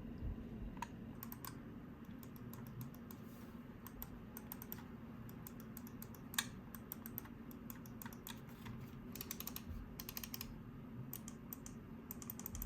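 Razer Viper V2 Pro gaming mouse buttons clicked over and over, single clicks and quick runs of clicks, faint over a low hum: the reassembled mouse's buttons, side buttons included, clicking with the case on again.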